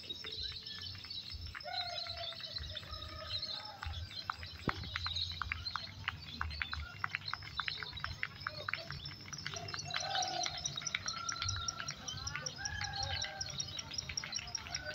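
Many caged lovebirds singing at once in a songbird contest: a dense, continuous run of rapid high chirps and trills, with spectators' voices calling out underneath.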